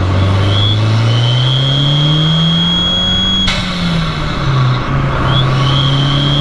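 Fiat 500 Abarth's turbocharged 1.4-litre four-cylinder engine, heard through an MPx cat-back exhaust, accelerating with a rising note and a high turbo whistle. About three and a half seconds in there is a sudden rush of hiss and the engine note drops to a lower steady pitch, as on a gear change, before the whistle builds again near the end.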